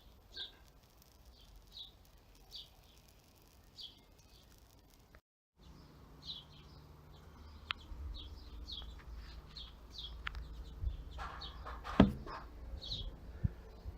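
A small bird chirping repeatedly, short high calls about once a second. A few knocks come in the second half, with one loud thud about twelve seconds in.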